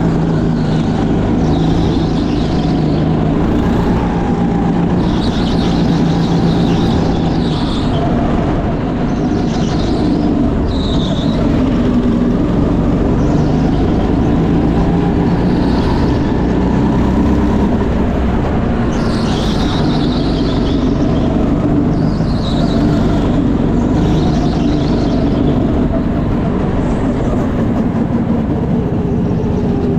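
Racing kart engine running under the driver, rising and falling in pitch as the throttle is opened and lifted through the corners.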